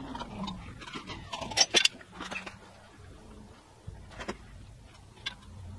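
Scattered light metal clicks and knocks as tools and a measuring instrument are handled against a workpiece clamped on a milling machine table, the sharpest a few around a second and a half in and one about four seconds in, over a faint steady hum.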